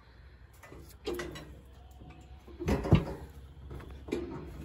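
A few dull knocks and clanks from a steel cattle squeeze chute holding a calving cow, the loudest about three seconds in, over a faint low rumble.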